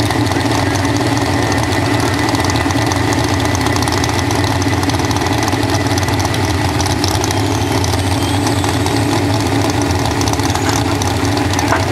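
Chevrolet S-10 pulling truck's engine idling steadily while the truck is hitched to the weight sled before its pull.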